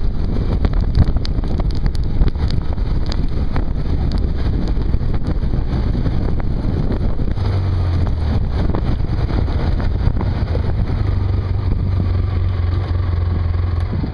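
ATV engine running steadily under way on a gravel road, its low hum growing stronger about halfway through, with tyres on gravel giving scattered clicks and wind noise on the microphone.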